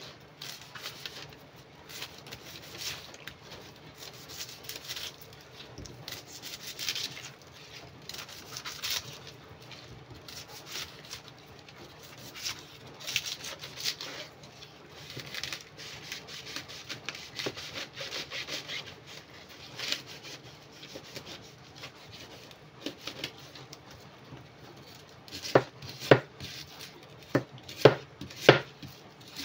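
Large kitchen knife cutting away a pineapple's tough crown leaves, a series of rasping, scraping strokes. Near the end come several sharp chops as the blade strikes down through the crown base onto a wooden cutting board.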